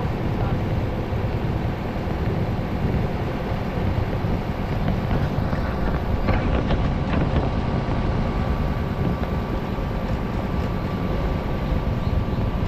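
Type 73 large truck's diesel engine running steadily as the truck drives along, heard from its open cargo bed, with a few light knocks about six seconds in.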